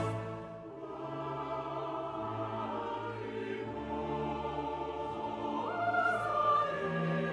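Slow classical-style music with choir and orchestra playing sustained chords. About six seconds in, a high voice glides up to a held note.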